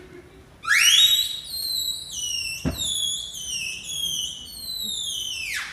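Loud, shrill whistling: a rising swoop into a long run of short warbling notes that step up and down, ending in a falling glide. A single thump about two and a half seconds in.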